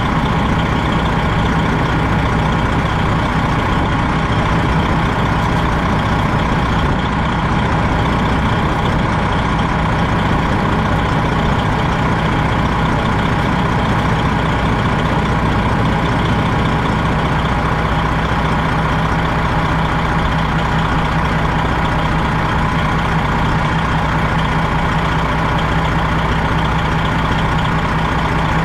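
Freightliner Classic XL semi truck's diesel engine idling steadily.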